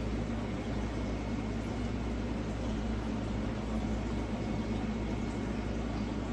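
Beef chunks frying in a skillet on a gas stove: a steady hiss over a low, even hum.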